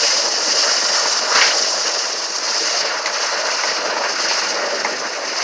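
Water rushing and splashing steadily from a burst water main, with a brief knock about a second and a half in.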